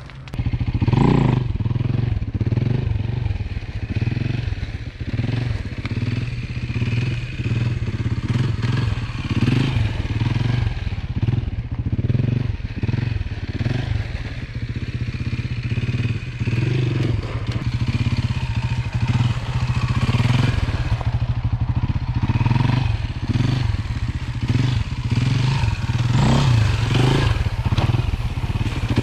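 Beta RR 450 four-stroke single-cylinder enduro dirt bike engine, ridden hard and revving up and down over and over.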